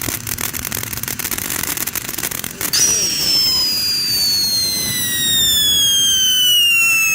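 Red Lantern SS Thrusters 500-gram fountain firework spraying with a dense crackle. About three seconds in, a loud whistle starts and falls slowly in pitch, then cuts off abruptly near the end.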